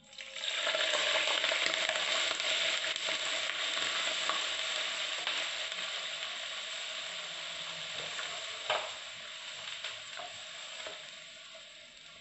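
Hot oil with whole cardamom pods poured onto sweetened vermicelli and sizzling. The sizzle starts suddenly, is loudest at first and slowly dies down, with a single knock about nine seconds in.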